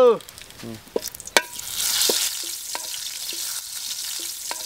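Bay leaves sizzling in hot oil in a metal pot over a wood fire, with a metal ladle tapping and scraping against the pot as it is stirred. The sizzle swells about a second and a half in and then holds steady.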